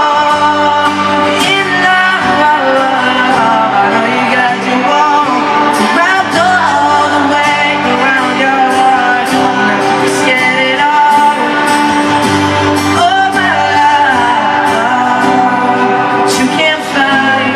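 Live pop music with singing, played loud and continuous.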